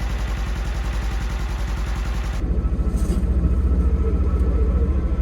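Polaris side-by-side's engine running with a steady low pulse, then getting louder and heavier about two and a half seconds in as it is put in drive and pulls away.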